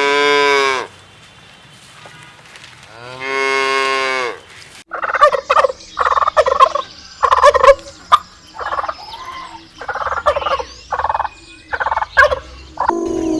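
A cow mooing twice in long, drawn-out calls. After an abrupt cut, poultry call in a rapid run of short calls.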